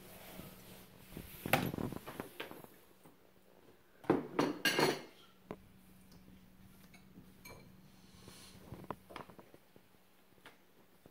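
Dishes and cutlery clinking and clattering in two short bursts, about a second and a half in and again around four seconds in, followed by a few scattered lighter clinks.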